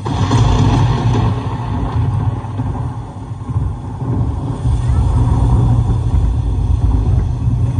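Wind buffeting the microphone: a loud, irregular low rumble that starts abruptly.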